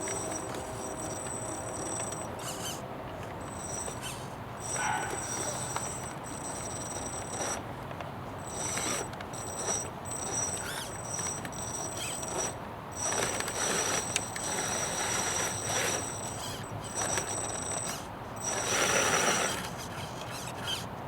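Small RC crawler driving over rough ground, its tyres and drivetrain giving off scraping rushes that come and go, the loudest near the end. Behind it runs a steady high insect chirring on two pitches that keeps dropping out and returning.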